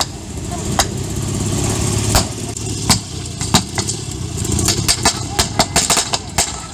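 Sharp cracks of blank gunfire from a re-enacted firefight, a few scattered shots at first and then many in quick succession from about four and a half seconds in, over a steady low rumble of a military vehicle's engine running.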